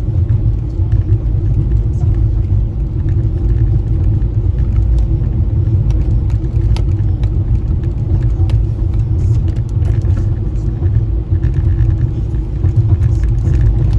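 Car driving on a snowy road: a steady low rumble of road and engine noise, with a few faint clicks.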